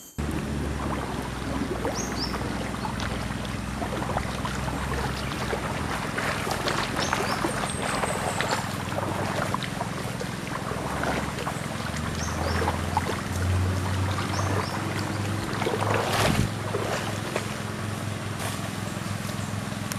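River water running over stones, with wind buffeting the microphone. Rustling footsteps come through grass along the bank, and faint bird chirps sound a few times.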